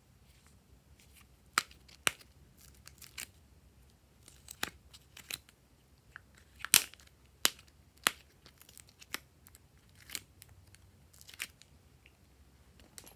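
Irregular sharp plastic clicks and snaps as the compartment lids of a plastic pill organizer are opened and the box is handled, the loudest snap a little past halfway.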